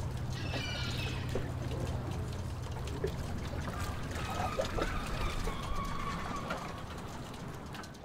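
Water trickling and lapping, full of small splashy ticks, with a few scattered bird calls over it. A low hum runs under it for about the first three seconds.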